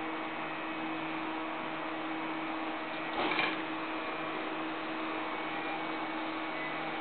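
Stepper motors of a home-built H-bot 3D printer humming steadily with a low tone while the gantry is nearly at rest, with a brief louder movement sound about three seconds in.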